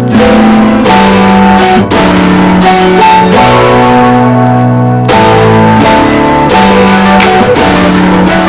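Loud background music, its chords changing every second or two.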